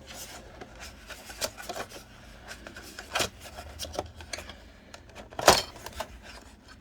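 Handling noises from a plastic earbud charging case being fiddled with in the hand: light rubbing and scattered small clicks, with one louder sharp click about five and a half seconds in.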